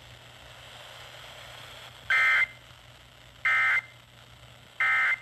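Emergency Alert System end-of-message data bursts: three short, identical warbling digital tone bursts about a second apart, over faint radio hiss. They mark the end of the severe thunderstorm warning just broadcast.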